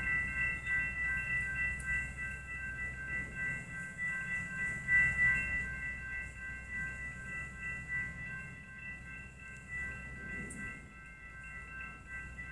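Railroad grade-crossing warning bells ringing steadily in a continuous pulsing clang, over a low rumble.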